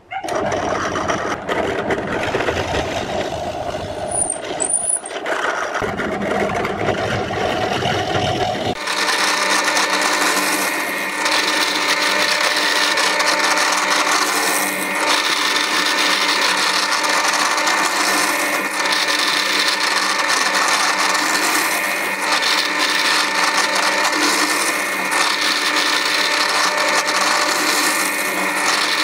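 Bench drill press motor running as it bores holes through plywood. About nine seconds in the sound changes abruptly to a thinner steady whine with several held tones, dipping briefly every few seconds.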